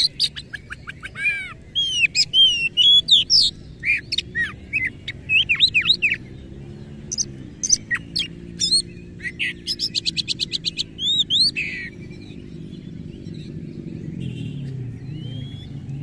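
Caged oriental magpie-robin (kacer) singing a varied song of sharp whistles, chirps and harsh mimicked phrases, with a fast even run of repeated notes about ten seconds in. The song thins to a few faint notes in the last few seconds.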